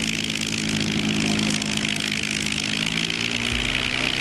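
Yak-9 warbird's piston engine and propeller running steadily at low power on the ground, the engine note shifting slightly about three and a half seconds in.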